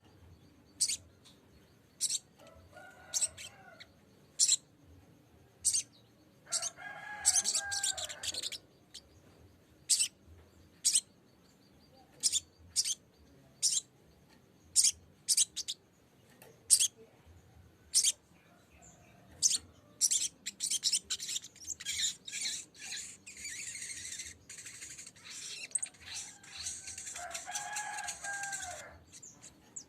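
Sogok ontong (sogon) bird calling: sharp, high single chip notes about once a second, with two longer bursts of rapid chattering song, the second running for several seconds near the end. This is the bird's challenge call, used as a lure to provoke a rival into singing.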